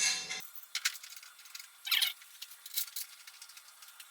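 Small metal hardware clicking and clinking: flange bolts and a hex key wrench being handled while the legs are bolted onto the chipper. A handful of sharp clinks, the loudest at the very start and about two seconds in.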